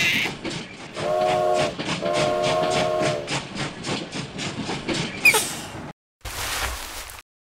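Toy steam train's recorded engine sound: quick, even chuffing at about four puffs a second, with two whistle blasts about one and two seconds in, the second one longer. The chuffing cuts off suddenly, followed by a short burst of hissing noise near the end.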